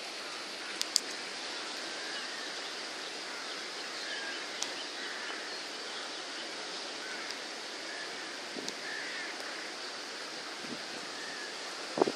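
Steady rushing of a flooded river in full spate, with faint bird chirps over it. A few sharp clicks and, just before the end, a short dull bump.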